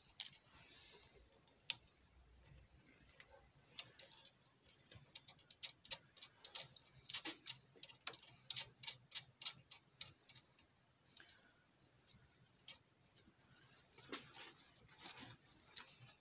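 Irregular small clicks and taps from a CO2 laser's mirror mount as a gloved hand seats a copper mirror and screws it in to lock it. The clicks come thickest in the middle stretch, with quieter handling noise before and after.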